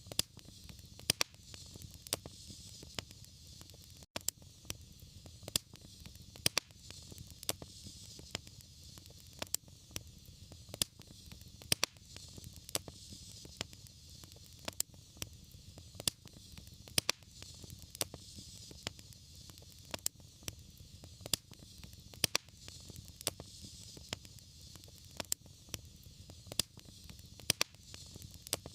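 Wood fire crackling in a fireplace: irregular sharp pops and snaps, a few each second, over a steady hiss.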